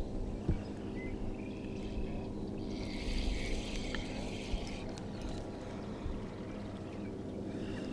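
A steady mechanical hum from the fishing boat runs under water sounds, with a short burst of splashing, pouring water about three seconds in.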